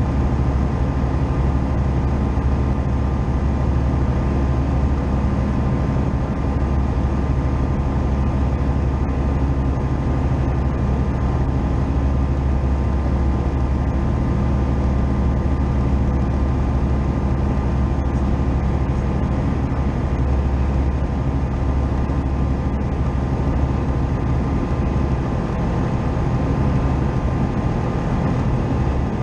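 Tecnam P2002 JF's Rotax 912 engine and propeller running steadily in flight, a constant low drone heard from inside the cockpit.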